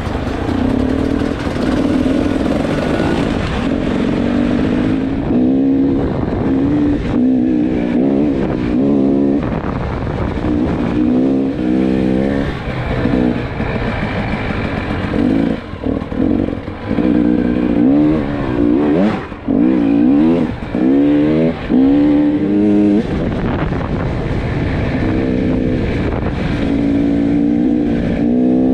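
A 300 cc two-stroke enduro motorcycle engine running under load, its pitch rising and falling over and over as the throttle opens and closes and the bike shifts gears, with wind rushing past.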